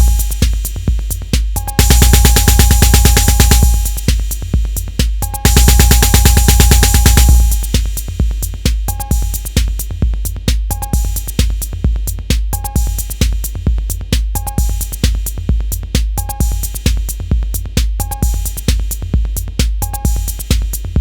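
Roland TR-808 drum machine playing a pattern: a deep bass drum about twice a second, with long stretches of cymbal hiss over the first seven seconds, then a short two-tone metallic hit about once a second over the bass drum.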